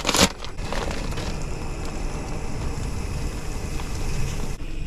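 A brief loud rustle as fresh linguine is tipped from its plastic packet into a saucepan of water. A steady hissing, rushing noise from the pan on the gas hob follows while the pasta is stirred in.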